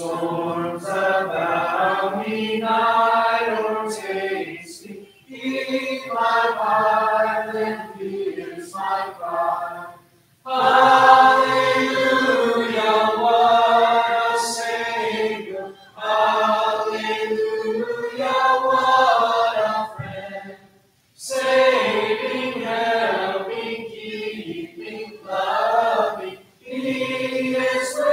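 Congregation singing a hymn without instruments, men's and women's voices together. The singing comes in phrases of a few seconds, with short pauses for breath between lines.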